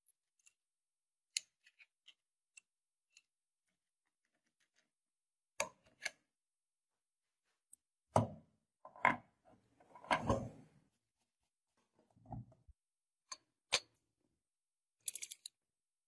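Handling noises: scattered light clicks, then a few heavier knocks and a short scraping rustle about halfway through, and more clicks near the end.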